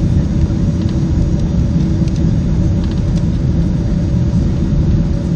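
Steady low rumble inside the cabin of a Boeing 767-300ER descending on approach with flaps extended: engine and airflow noise, with a couple of steady hums running through it.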